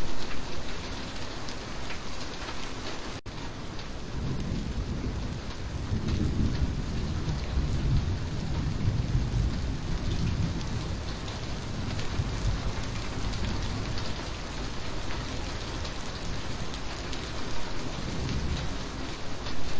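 Steady heavy rain falling, with a low rolling thunder rumble that swells a few seconds in and fades away again. A split-second dropout breaks the sound about three seconds in.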